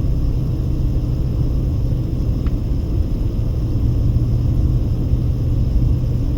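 A car driving uphill: steady low rumble of road and engine noise with a constant low hum.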